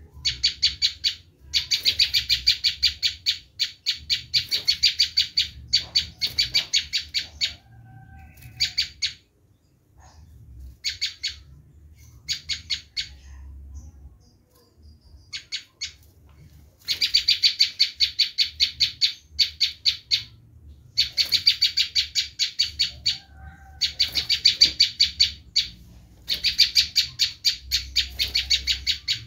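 Prenjak lumut giving its harsh, screaming calls: rapid rattling runs of sharp, high notes in bursts of one to two seconds, sparser and shorter for a few seconds midway. It is the excited call used as a lure for wild prenjak.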